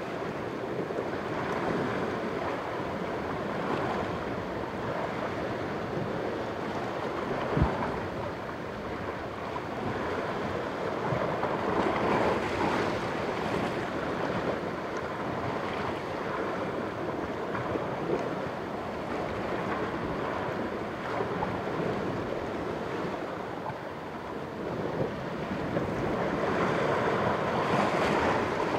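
Sea waves washing against the rocks below a cliff, with wind; the surge swells about twelve seconds in and again near the end. A single sharp click sounds about seven and a half seconds in.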